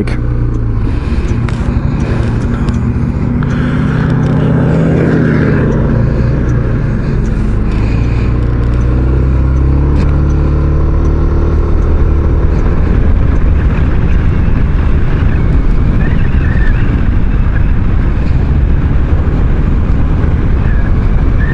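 Maxi-scooter engine pulling away and accelerating, its pitch rising over the first few seconds, then cruising steadily. Wind and road noise build on the rider's microphone as speed picks up.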